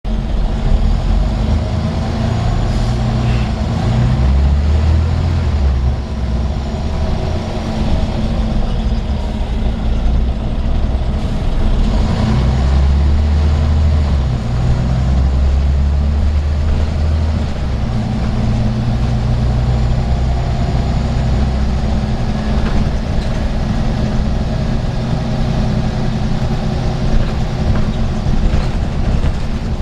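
Scania N94UB single-deck bus heard from inside the passenger saloon while under way: its rear-mounted diesel engine running steadily over road noise, the low engine note swelling louder for a few seconds at a time as it pulls.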